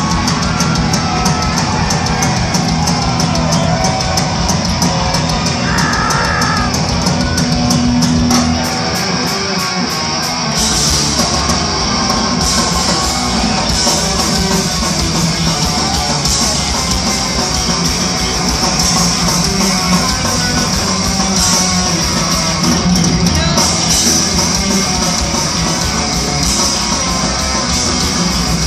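Live punk rock band playing loud through a hall PA, with electric guitars and drums, as picked up by a phone's microphone in the crowd. The cymbals grow louder and denser about ten seconds in.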